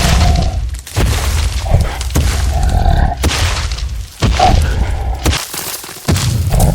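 Dinosaur sound effects: a series of deep booms and crashing thuds, each lasting about a second or two with short breaks between them.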